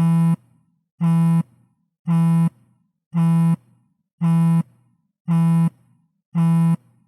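iPhone vibrating for an incoming call or alert: a low buzz in short pulses of about a third of a second, repeating about once a second, seven times.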